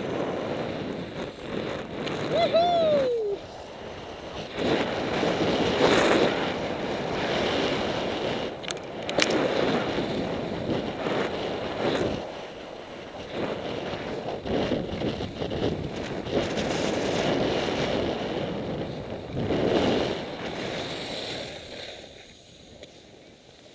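Skis sliding and scraping over packed snow, with wind rushing over the camera's microphone; the hiss swells and fades with each turn and drops away near the end as the skier slows to a stop.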